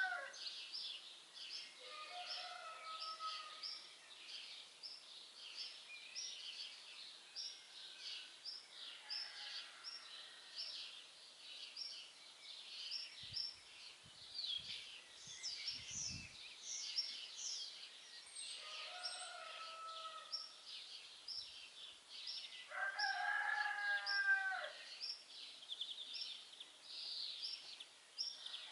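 Small songbirds chirping in a fast, steady string of short high notes, with a rooster crowing several times over them, loudest about two thirds of the way through.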